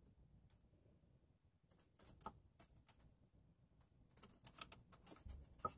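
Faint, scattered small clicks and rustles of wires and plastic connectors being handled behind a car dashboard, becoming more frequent near the end.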